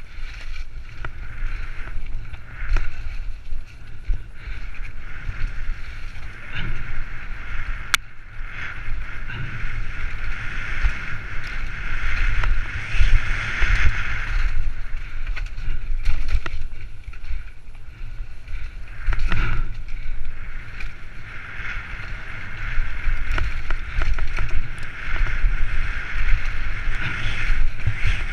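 Wind buffeting a helmet-mounted GoPro, with mountain-bike tyres rolling fast over a dirt singletrack and frequent short knocks and rattles as the bike hits bumps.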